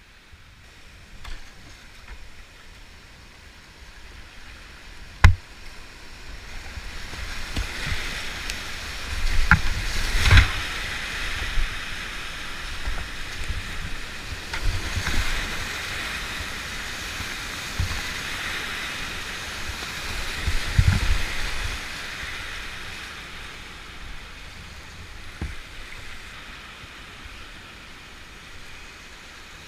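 Rushing whitewater of a steep rocky river rapid heard from a kayak running it: quiet at first, then a loud rush from about seven seconds in that eases after about twenty-two seconds. There is a single sharp knock about five seconds in, and heavy thumps near ten seconds and again around twenty-one seconds as the boat drops through the ledges.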